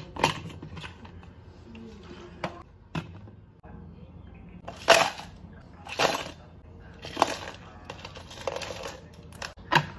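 Ice cubes scooped with a metal scoop and dropped into a plastic cup. There are about five rattling clatters, a second or so apart, in the second half. These follow a few sharp knocks of plastic containers being set down.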